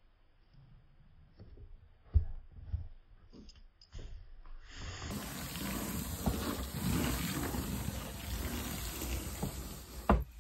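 Fingers pressing cardboard jigsaw pieces into place with a few light clicks. Then a flat palm rubs and smooths across the finished puzzle's surface with a steady hiss, ending in one sharp knock near the end.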